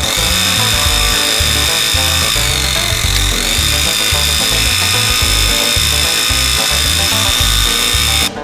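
Scroll saw running with a steady high whine over background music with a steady beat; the machine sound starts abruptly and cuts off just before the end.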